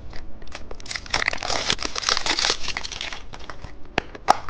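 Plastic candy packaging crinkling and crackling as it is handled and opened, with a couple of sharp clicks near the end.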